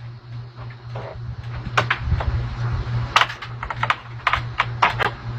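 Irregular light taps and clicks on a screen door as it is worked at and knocked on, about ten sharp strikes, most in the second half, over a steady low hum.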